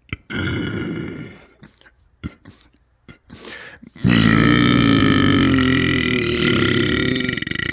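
Two loud burps from a person: a short one lasting about a second near the start, then a much longer, pitched burp starting about four seconds in and running on past the end. A few small mouth clicks fall in the gap between them.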